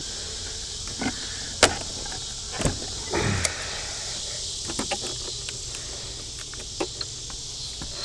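Wooden beehive honey supers being handled: a few sharp wooden knocks and a short scrape, the loudest about a second and a half in. Under them runs a steady high drone of insects.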